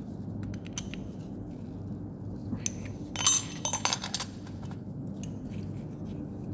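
Metal hand tools clinking against each other and the engine's valve gear: a short cluster of light metallic clinks and jingles about three seconds in, over a steady low hum.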